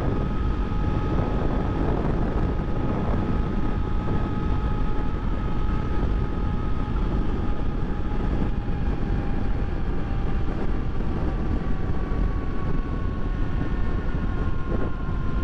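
Honda XRE300's single-cylinder engine running steadily at highway cruising speed, with wind and road rush over the bike. The engine's tone eases slightly lower over the second half as the bike slows.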